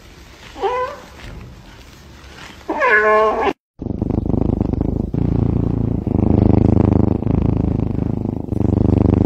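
A domestic cat meows twice, briefly and then louder. After a short break comes a loud, steady cat purr that pulses with each breath.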